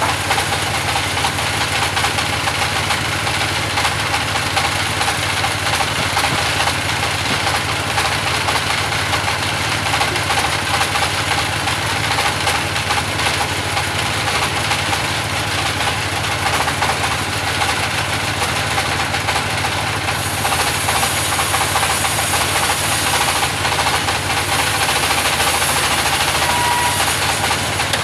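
Engine-driven band sawmill running steadily as it saws timber into pallet boards, a dense continuous machine noise that grows hissier about twenty seconds in.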